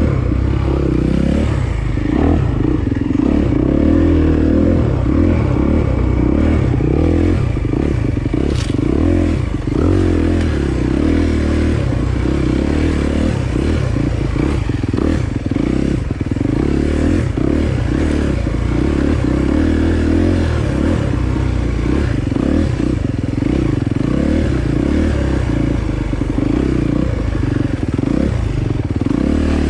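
Dirt bike engine running along a trail, its pitch rising and falling as the throttle is opened and closed, with constant clattering and rattling over the rough ground.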